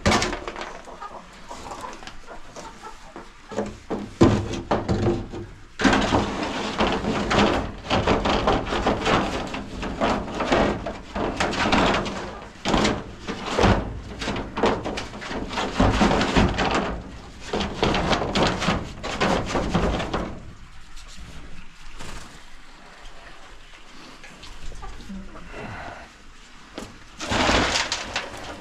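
Hand-held welded metal coop scraper scraping dried chicken droppings off the coop's shield boards, in a run of rough scrapes and knocks, busiest through the middle and easing off later.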